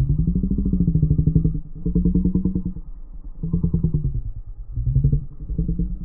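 An engine revving repeatedly: a pulsing drone that surges up in pitch and eases off about five times.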